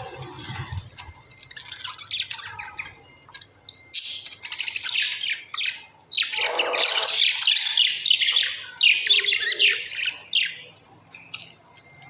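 A flock of budgerigars chirping and chattering, many birds at once. The calls grow busier and louder about four seconds in, then thin out near the end.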